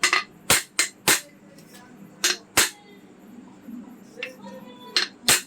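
Sharp knocks of a hammer tapping on a ceiling fan's metal housing, about seven irregular strikes, some in quick pairs, as the fan's upper housing half is seated onto the lower half.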